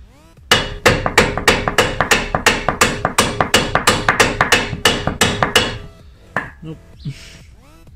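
Hammer blows on steel at the car's front hub, a fast even series of about three strikes a second, each with a short metallic ring, stopping after about five seconds, then two lighter knocks. This is the driveshaft being hammered at the hub during its removal or fitting.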